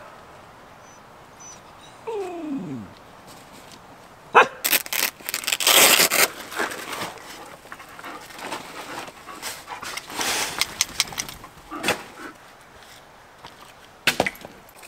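A dog makes one vocal sound that slides down in pitch, about two seconds in. Bursts of rustling and sharp clicks follow; the loudest come about four to six seconds in, with more near ten seconds and single clicks near the end.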